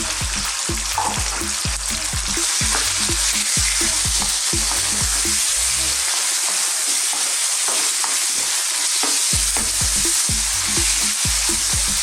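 Thin strips of chicken breast sizzling steadily in hot oil in a wok, with the scrape and clatter of stirring.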